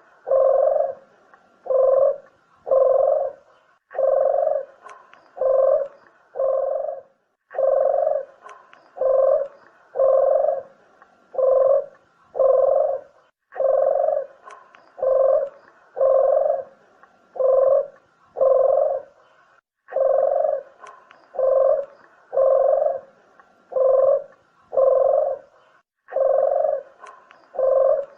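Puter dove (ringneck dove) cooing: runs of several deep, evenly spaced coos, each run starting again about every six seconds, the call used to lure the birds.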